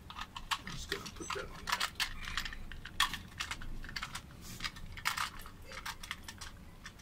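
Irregular light clicks and taps of a plastic infrared beam sender unit being handled and fitted in place by hand.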